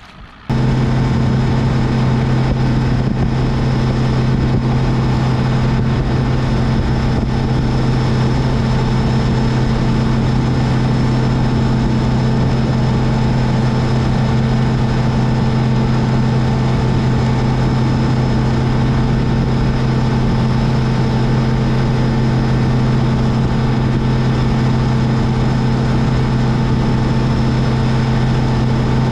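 Bass boat's outboard motor running at a steady cruising speed, an even engine drone with a rush of wind and water, coming in abruptly about half a second in.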